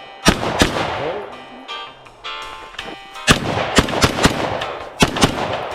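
Gunfire at an outdoor range: two quick shots near the start, then about five more in quick succession from a little after three seconds, each with a ringing echo. Music plays underneath.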